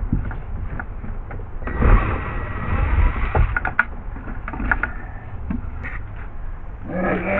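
A power drill-driver whirs in one short run of about a second and a half, backing out a screw, among scattered clicks and knocks of tools and parts being handled.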